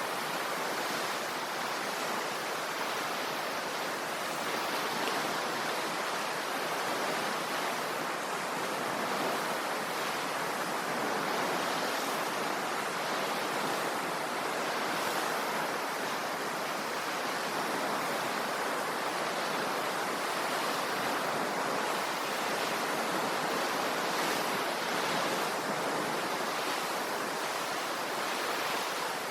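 Sea waves washing in: a steady, continuous rush of surf with no distinct breaks.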